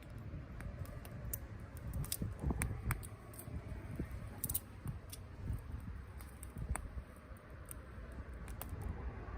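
Wood campfire crackling, with irregular sharp pops and snaps over a low rumble.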